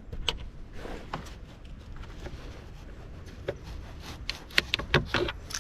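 Small clicks and taps as plastic push-pin fasteners on a Hyundai Tucson's air intake duct are pried up with a car key, with a cluster of sharper clicks in the last second and a half.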